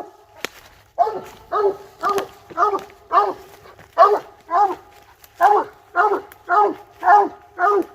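Coon hound barking treed at the base of a tree, a steady string of about two barks a second, the call that tells the hunters the dog has a raccoon located up the tree.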